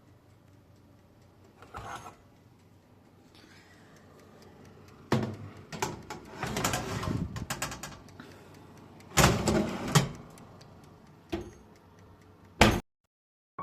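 Household handling sounds: a string of sharp knocks and clatters with rustling in between, busiest about nine seconds in, after a few quiet seconds at the start.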